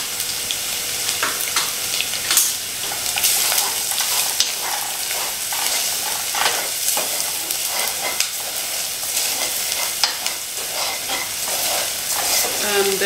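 An onion, garlic and ground-spice mixture sizzling in oil in a stainless steel pot while a wooden spatula stirs it, with many short scrapes of the spatula against the pot.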